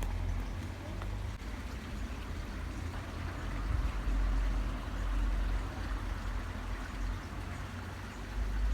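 Wind buffeting the microphone in an uneven low rumble that swells now and then, over a faint steady rushing hiss.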